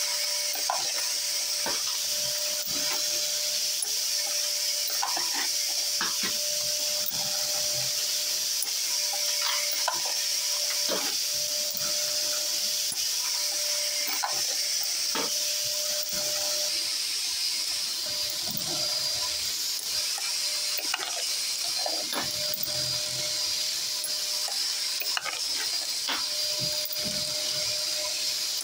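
Vacuum cleaner running steadily with a high hiss, drawing chips from a power case trimmer, while a progressive reloading press is cycled stroke by stroke. Irregular metallic clacks come every one to four seconds as the ram strokes and the shell plate indexes, and the trimmer's DC motor switches on briefly at the top of each stroke to trim the case.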